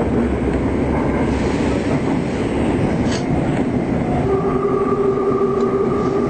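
Metro train running through a tunnel: a steady rumble of wheels on the rails. About four seconds in, a steady whine joins the rumble.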